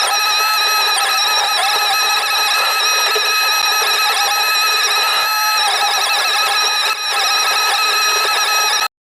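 Cat HM210 mulcher head on a Cat 309CR excavator running with a steady, high-pitched, many-toned whine. It cuts off abruptly near the end.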